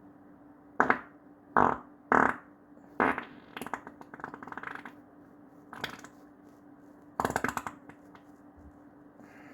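A person farting: a string of short, loud bursts, with a quick sputtering run about halfway through and a longer, rattling one near the end. A faint steady hum sits underneath.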